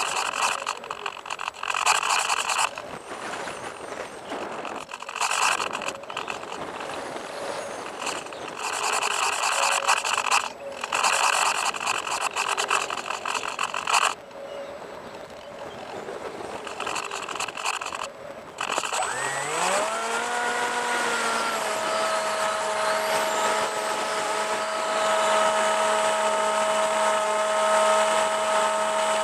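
Rushing noise that comes and goes in gusts, then about two-thirds of the way through the Bixler RC plane's electric motor and propeller spool up with a rising whine and settle into a steady tone.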